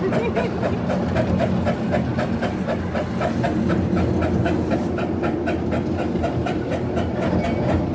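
Miniature ride-on railroad train running along its track: a steady rumble with a fast, even clatter about four or five beats a second.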